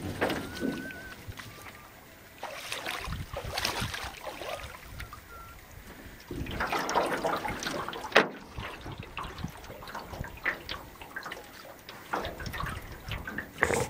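Water splashing and sloshing as a person wades through shallow lake water beside a canoe and pushes it off. This is followed by irregular small splashes and drips of water against the canoe's hull.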